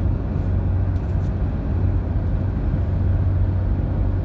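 Steady road and engine noise inside a moving car: a constant low hum under an even rush of tyre and wind noise.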